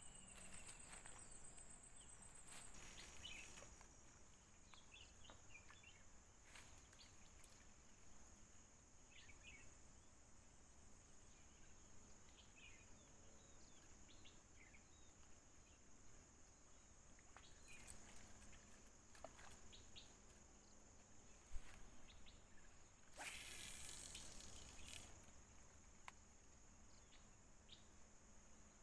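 Faint insect drone, a steady high thin buzz, with scattered short bird chirps over it. A brief burst of noise breaks in about three quarters of the way through.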